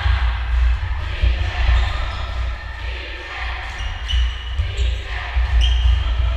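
Basketball bouncing on a gym floor amid voices in a large hall, with a few short high squeaks.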